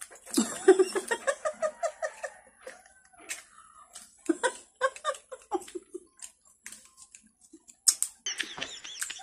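Women laughing in two bouts of short, repeated pulses, with scattered crisp clicks of chewing watery rose apple (tambis) fruit between them.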